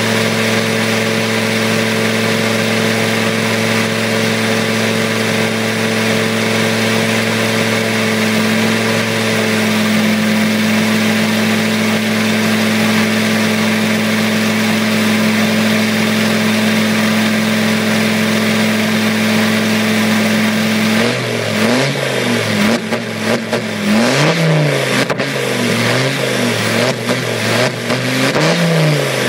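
Freshly tuned-up Land Rover Defender 90 engine idling steadily for about twenty seconds. It is then revved up and down repeatedly, the pitch rising and falling several times.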